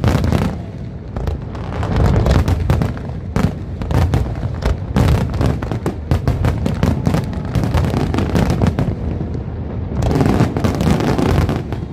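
Aerial fireworks going off: rapid volleys of sharp bangs and crackles over a continuous low rumble, thickest about ten seconds in.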